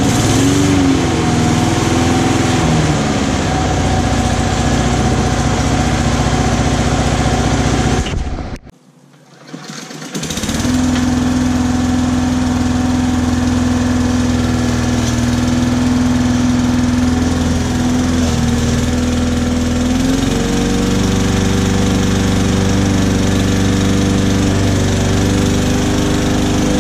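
Victa Classic Cut 18-inch four-stroke petrol lawn mower engine running, its speed wavering up and down at first. About eight seconds in the sound breaks off for roughly two seconds, then the engine runs steadily again while mowing grass, its pitch stepping up slightly about two-thirds of the way through.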